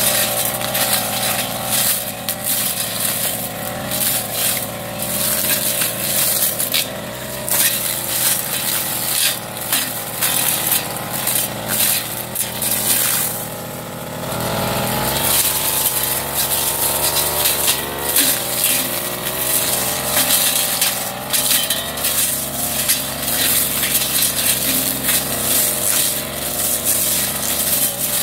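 Backpack brush cutter engine running at high revs while its cutting head slashes through cogon grass and brush, with frequent crackling as stems are hit. The engine note wavers with the throttle and dips briefly about halfway through before picking up again.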